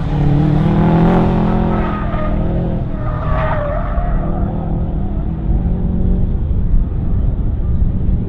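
Autocross car driving the cone course: engine revving up and down through the turns, with tyres squealing, loudest about three to four seconds in. The engine then eases off as the car moves away.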